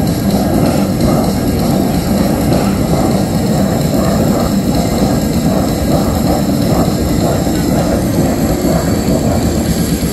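Bellagio fountain's water jets at full height, a loud steady rush of spraying water crashing back onto the lake.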